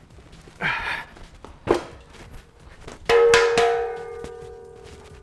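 A steel air compressor tank is tipped upright on a concrete floor: a scrape under a second in, then a solid thunk as it lands. About three seconds in, metal strikes metal a few times in quick succession and rings on with a bell-like tone that slowly fades.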